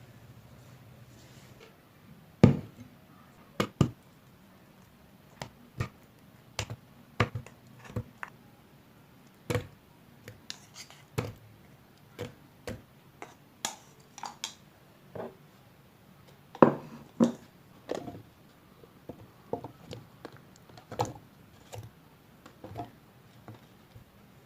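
Kitchen utensils and containers knocking and clicking against each other while blueberries and yogurt are handled and mixed. The sharp taps come irregularly, some two dozen, with the loudest about two and a half seconds in and about sixteen and a half seconds in.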